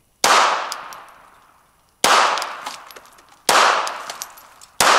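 Glock 42 pistol firing four .380 ACP shots, about a second and a half apart, each followed by a long fading echo.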